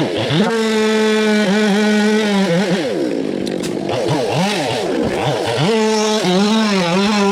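Chainsaw engine running at high revs. Its note mostly holds steady, with a few brief dips in pitch, and swings up and down several times in the middle.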